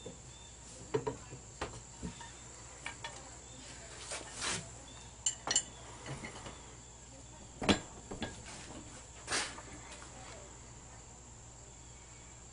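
Scattered metal clicks and knocks from a 24-inch pipe wrench being handled and reassembled, the sharpest knock about two-thirds of the way in, over a steady high-pitched hum.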